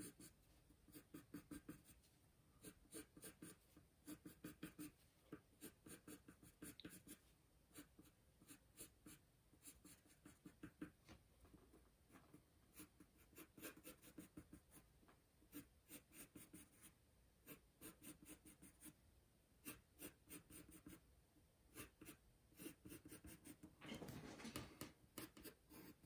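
Faint pencil strokes on paper: a graphite pencil drawing many short lines one after another, a few per second, with a denser run of strokes near the end.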